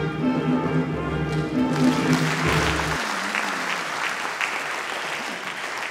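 Audience applause building about two seconds in over instrumental music with sustained notes and a bass line. The music stops about three seconds in and the applause carries on alone.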